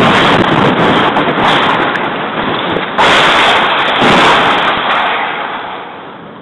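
Artillery shell explosions: the loud rumbling noise of a blast carries on, then another sudden blast comes about three seconds in and a further one about a second later, before the noise fades away.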